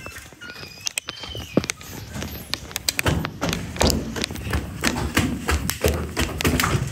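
A rapid, irregular run of taps and thumps, sparse at first and thickening about halfway through.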